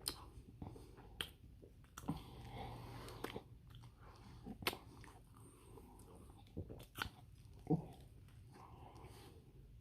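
A person chewing a bite of chili dog, with scattered short, wet mouth clicks and smacks at irregular intervals.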